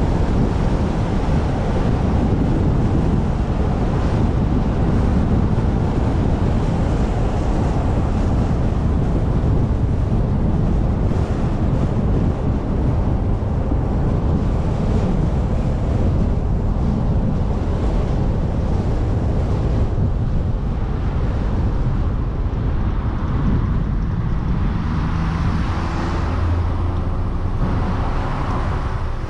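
Wind buffeting a camera microphone on a moving car, mixed with road and tyre noise. Toward the end the wind eases and a low, steady engine hum comes through.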